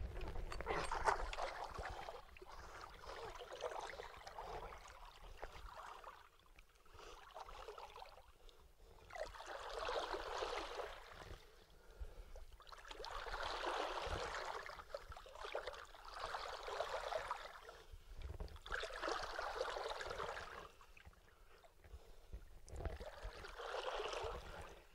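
River water splashing and gurgling in uneven swells, about six of them, as a big flathead catfish is held in the water over the side of an aluminium boat.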